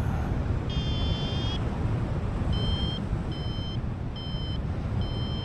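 Paragliding variometer beeping: one longer tone about a second in, then short beeps repeating a little more than once a second, the climb tone that signals the glider is rising in lift. Steady wind rumble on the microphone underneath.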